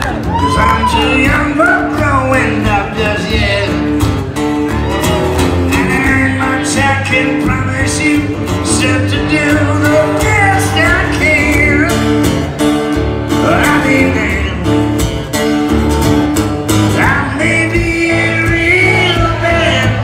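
Live acoustic country song: a man singing with acoustic guitars accompanying, amplified through a PA in a hall.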